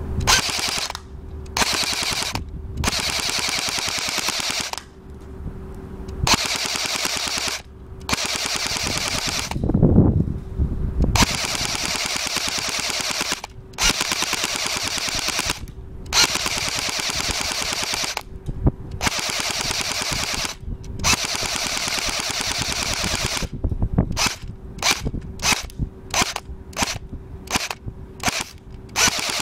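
Airsoft Thompson M1928 replica firing on full auto: long bursts of rapid, even fire lasting a few seconds each with brief pauses between, then a string of short bursts near the end.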